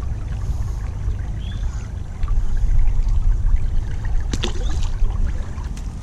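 Shallow creek water running steadily with a heavy low rumble. About four and a half seconds in comes one short, sharp splash: a small redbreast sunfish tossed back into the creek.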